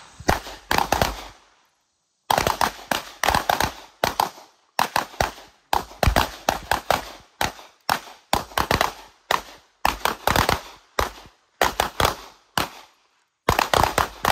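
Several handguns fired by a line of shooters at once, shots coming unevenly and sometimes overlapping, a few per second, with a brief pause about a second in.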